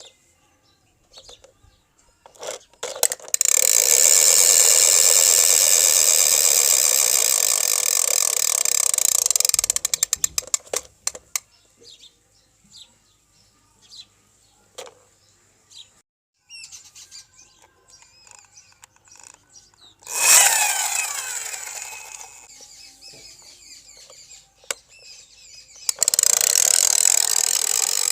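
Toy helicopter's gears and rotor mechanism whirring in loud spells, with clicks in between. Near the middle a sudden burst of whirring fades away over a few seconds, and near the end the buzzing starts up again.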